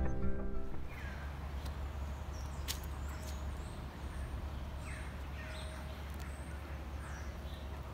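Outdoor ambience: birds calling in short, scattered chirps over a low steady rumble, with a single click near the middle. Music fades out within the first second.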